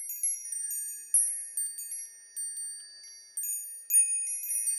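Wind chimes tinkling: high, bright metal tones struck at irregular moments and left to ring, several overlapping, with a cluster of fresh strikes about a second in and again near the end.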